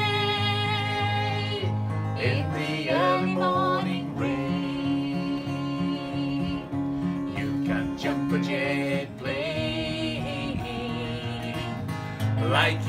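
Acoustic guitar strummed while a man and a woman sing together on long held notes.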